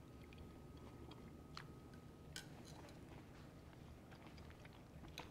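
Near silence: faint chewing of a mouthful of steak, with a few light clicks of a knife and fork on a plate. A faint steady high tone runs through the first half and stops.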